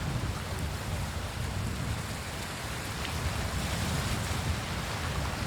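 Surf washing onto a beach, a steady hiss of breaking waves, with wind buffeting the microphone in uneven low rumbles.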